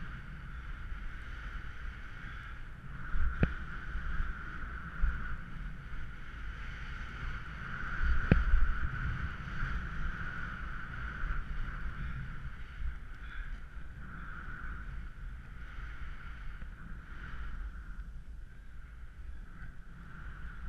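Steady rushing noise of wind on a moving camera's microphone and a rumble as the rider slides over snow, with two sharp knocks about three and eight seconds in.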